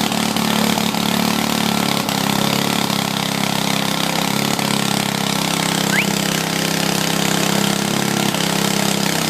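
Engine of a trenchless sewer-replacement machine running steadily with a constant hum. A brief high squeak comes about six seconds in.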